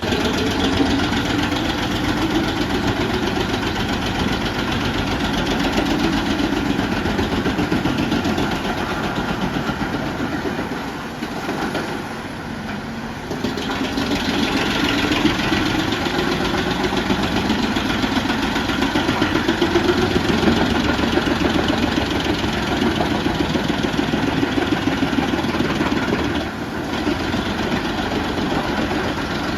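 Truck-mounted Jenz drum wood chipper running under load, its engine and spinning drum chewing through logs fed in by the conveyor. The sound eases briefly about eleven seconds in, then picks up again.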